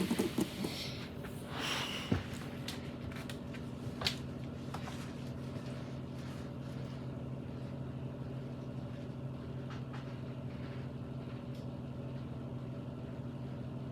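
A steady low mechanical hum, with a few light knocks and rustles in the first two seconds and one sharp knock about four seconds in, as the cardboard toy box is handled.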